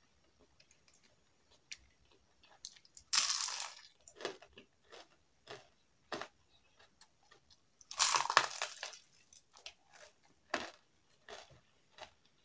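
Close-miked eating: crispy fried chicken skin crunched in two loud bites, about three seconds in and again about eight seconds in, with quieter crackling chewing between and after.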